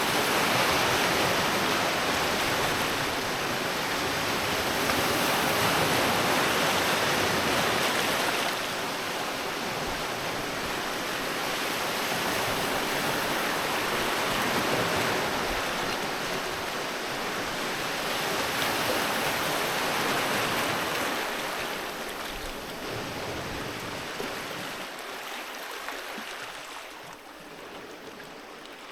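Sea waves washing onto a beach: a continuous rush of surf that swells and ebbs several times, growing quieter toward the end.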